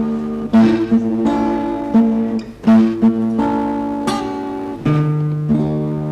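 Acoustic guitar playing an introduction of strummed chords, each left to ring before the next is struck.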